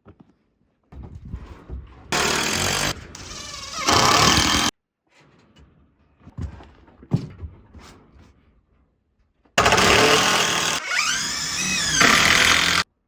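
A power tool runs in two bursts of about three seconds each, its motor pitch rising and falling. Scattered knocks and handling noises come between the bursts.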